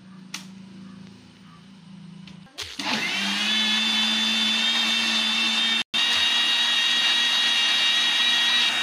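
Panasonic mixer grinder switched on about two and a half seconds in, spinning up and then running steadily with a high whine while blending chopped rose apples with frozen milk, sugar and water into a shake. The sound cuts out for an instant near the middle, then carries on.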